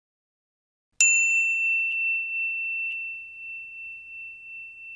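A single bright chime struck about a second in: one high, pure bell-like tone that rings on and slowly fades, with two faint taps a second apart as it decays.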